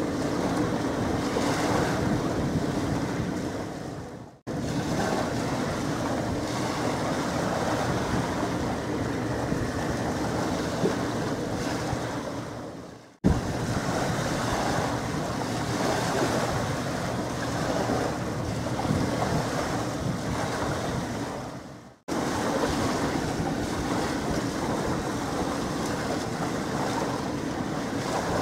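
Steady wind buffeting the microphone over a continuous harbour-water rumble, with no ship's horn sounding. The sound fades out and resumes abruptly three times, about 4, 13 and 22 seconds in, where the recording is cut between shots.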